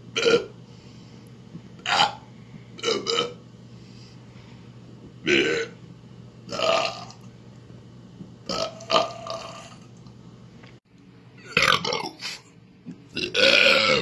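A man burping over and over: about a dozen short belches at uneven intervals, some coming in quick twos and threes, with one longer burp near the end.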